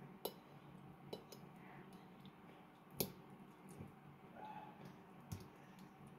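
A fork mashing fried zucchini on a plate: a few scattered clicks and clinks of the fork against the plate, the loudest about three seconds in, over a faint steady hum.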